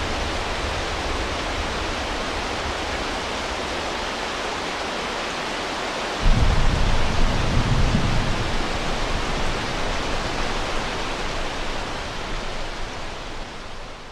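Steady heavy rain hissing, with a low rumble of thunder breaking in about six seconds in and dying away over a few seconds; the rain fades out near the end.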